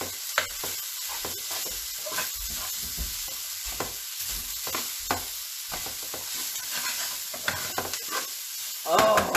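Pork, garlic and onion sizzling in a skillet, with a spatula repeatedly scraping and knocking against the pan as the meat is chopped fine. The frying hiss is steady under irregular knocks, several a second.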